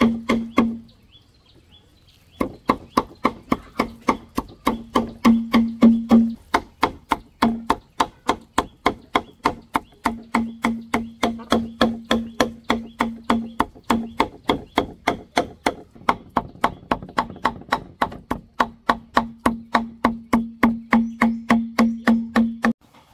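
A knife chopping raw pork into mince on a wooden chopping board: a long run of steady, even blows, about three or four a second, with a pause of a second or so near the start.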